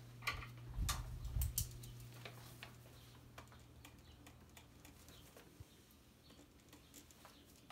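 Papers and small items handled on a wooden nightstand, with a few clicks and low thumps in the first two seconds. Then a pen writes on a paper chart: faint scratching and light ticks.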